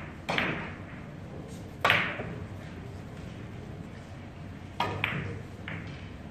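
Carom billiard shot: the cue strikes the cue ball and the balls click sharply against each other and the cushions. There are several separate clicks, the loudest about two seconds in and two more in quick succession later.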